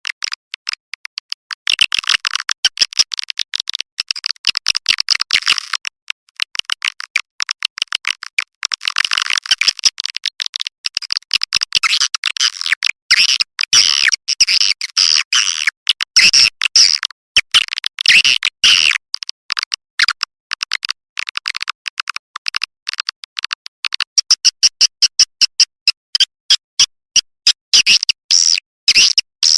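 Swiftlet lure-call recording: a loud, dense stream of rapid chattering chirps and clicks, with nothing below the high range. It is a call sound played from a swiftlet house to draw swiftlets in to roost and nest.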